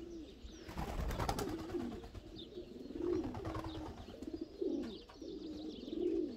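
Racing pigeons cooing: repeated low, wavering coos, one after another.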